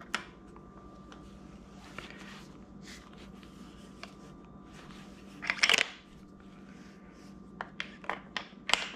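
Handling noise from fitting a laser bore sighter to a shotgun: a few light clicks, a short rubbing rustle about five and a half seconds in, then a quick run of sharp clicks near the end, over a faint steady hum.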